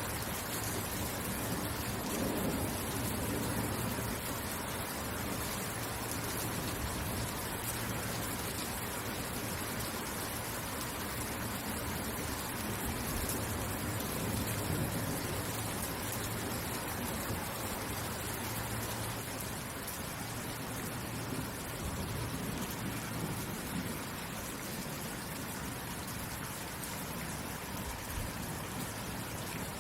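Steady rain falling, an even hiss of drops with no distinct events.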